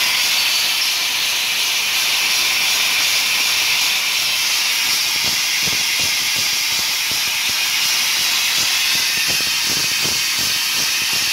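Dry ice blasting machine running, its nozzle letting out a steady, loud hiss of compressed air.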